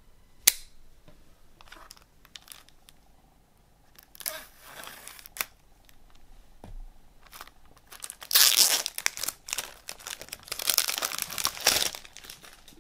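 Cellophane shrink wrap being cut and torn off a CD jewel case. A sharp click comes about half a second in, then bursts of crinkling and tearing plastic film, loudest and most continuous from about eight seconds in.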